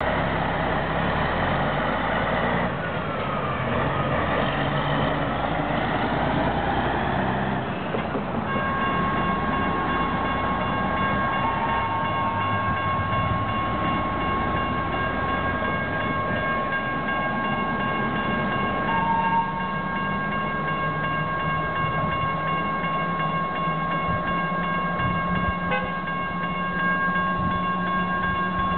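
Road traffic noise, with a vehicle passing, for the first few seconds. About eight seconds in, the railroad crossing's warning bell starts and rings on steadily as a train approaches.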